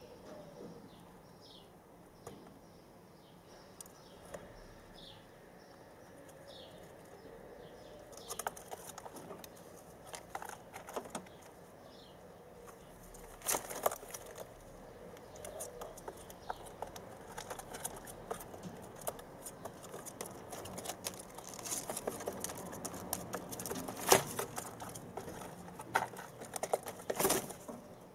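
Rustling and scratching of feathers and nest straw as two white Barbary dove squabs preen and shift on their nest, in scattered short scrapes and taps that grow more frequent in the second half, the sharpest about 24 seconds in. Faint short high chirps sound in the background in the first half.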